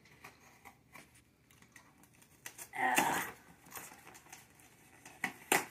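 Cardboard box being cut open with a blade: faint scraping and rustling, a louder burst about three seconds in, and two sharp clicks near the end.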